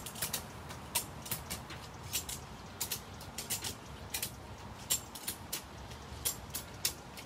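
Slackline ratchet being cranked to tension the line: a few sharp metal clicks a second at uneven spacing, some in quick pairs, as the handle is worked back and forth.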